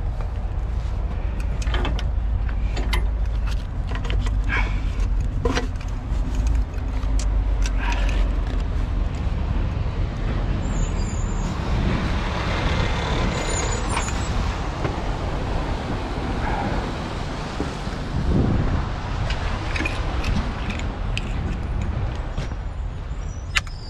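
Heavy truck engine idling with a low, steady rumble, with scattered metallic clicks and knocks. A rush of noise comes about halfway through.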